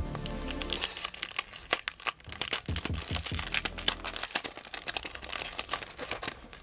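Plastic sticker packaging crinkling and crackling in irregular bursts as it is handled and opened by hand.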